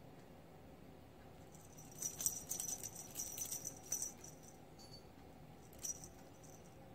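Jingling of a small bell on a feather-wand cat toy being shaken: a busy run of jingles starting about two seconds in and lasting a couple of seconds, then a short jingle near the end.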